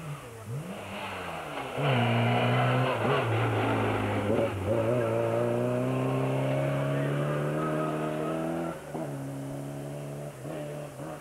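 Rally car engine accelerating past: the pitch dips about four seconds in, then climbs steadily for several seconds before dropping away near the end as the car pulls off.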